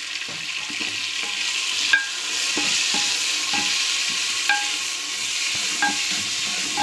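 Raw sliced onions sizzling in hot oil in an aluminium pressure cooker, stirred with a perforated metal spoon that scrapes and clinks against the pot several times, loudest about two seconds in. This is the start of frying the onions toward golden brown.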